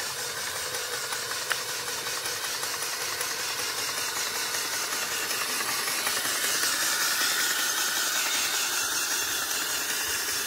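Homemade solenoid engine (a large electromagnet coil driving a piston on a crank) running fast on a 20-volt battery as it drives a bicycle along, a steady rapid mechanical rattle that gets a little louder past the middle.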